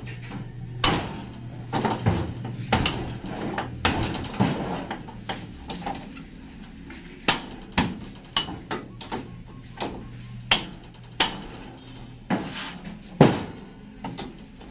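Hammer blows on a chisel cutting at the bottom edge of sheet-metal siding: irregular sharp metallic knocks, some in quick runs of taps and some single harder strikes.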